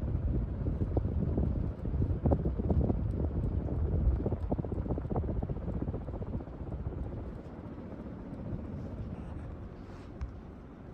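1998 Craftmade Hi-Tech ceiling fan running, a low whooshing drone with rapid irregular ticks and knocks. The sound grows gradually quieter over the second half.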